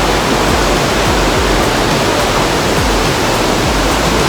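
Waterfall water falling and crashing, a loud, steady rush with no let-up.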